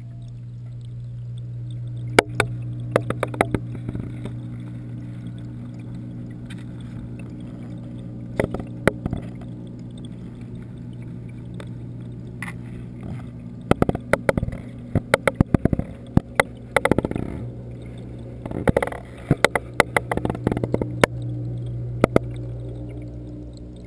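Steady low hum of the reef aquarium's water pumps heard underwater through a submerged camera, with scattered sharp clicks and knocks that come in several bunches, the loudest around the middle and later part.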